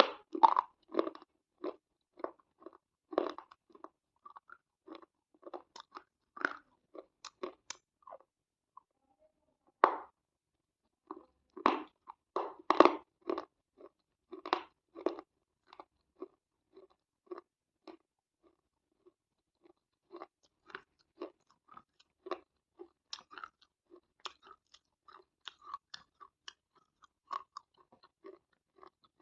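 Close-miked crunchy chewing: crisp bites and rapid crackling chews, loudest in clusters near the start and in the middle, then softer, steadier chewing later on.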